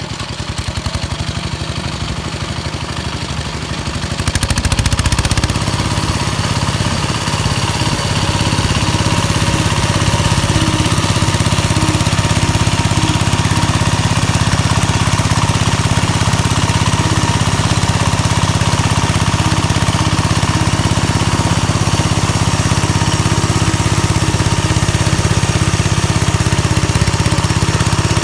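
Engine of a homemade mini-tractor built from a walk-behind tractor, running while it pulls a rotary tiller. It picks up and gets louder about four seconds in, then runs steadily.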